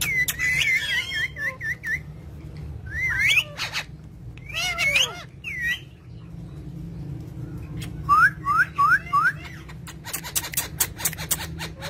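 Pet parrot whistling: a run of wavy whistled notes, then separate sliding whistles and a set of four short rising whistles. Near the end come a rapid burst of sharp clicks.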